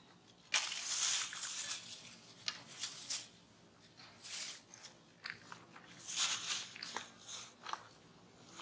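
Dry leaf litter crunching and rustling in irregular bursts under the feet of walking monkeys.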